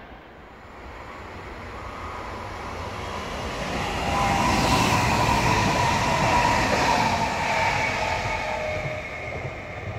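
A VR Sm5 (Stadler FLIRT) electric commuter train passes at speed: wheel and track rumble with a motor whine, building up, loudest in the middle and fading as it goes by. The whine drops in pitch as the train passes.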